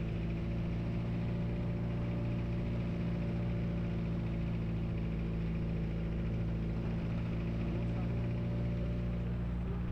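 An engine running steadily with an even hum that holds one pitch throughout.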